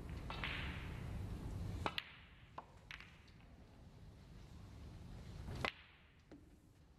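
Snooker balls clicking together as a shot is played into the pack of reds: one sharp click about two seconds in, a couple of lighter clicks just after, and another sharp click later on.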